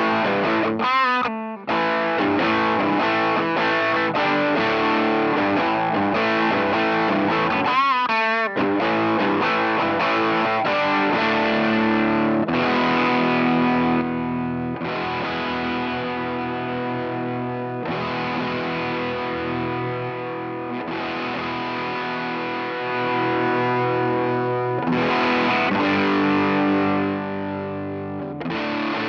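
Electric guitar, a Fender Stratocaster, played through the SVI Sound Fuzz Genetic fuzz pedal: heavily fuzzed chords and riffs, with a brief sweeping sound twice in the first part. From about halfway it turns to held, ringing fuzz chords with short breaks between them.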